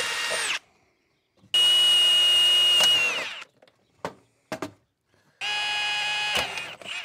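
Power drill drilling holes in a solar junction box enclosure for conduit and PV wire fittings: the motor runs in three spurts with a steady whine, the second winding down as it stops, and gives two short blips between runs.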